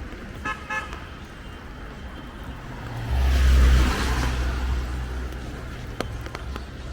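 A car passing close by on the road: a low engine rumble and tyre noise swell to a peak about three and a half seconds in, then fade away.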